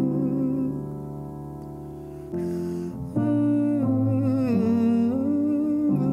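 Background music: a slow, wavering melody that drops softer for about two seconds in the middle.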